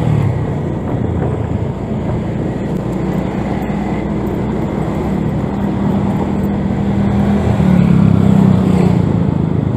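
Motorbike engine running steadily while riding, with wind and road noise on the microphone; the engine note gets a little louder about eight seconds in.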